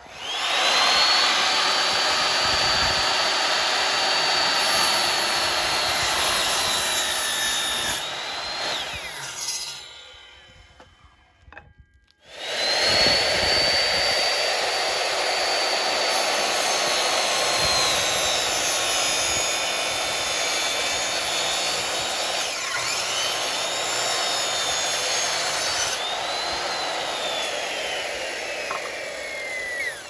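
Electric miter saw starting with a high whine and cutting wood, then spinning down with a falling pitch about eight seconds in. It starts again about twelve seconds in, runs through another cut, and winds down near the end.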